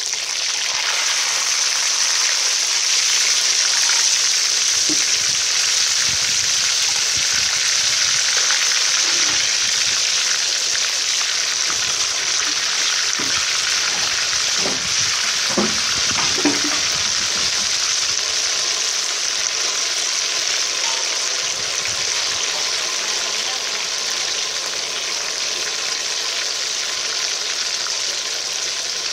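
Whole snakehead fish and crabs deep-frying in hot oil in a steel wok: a loud, steady sizzle of bubbling oil.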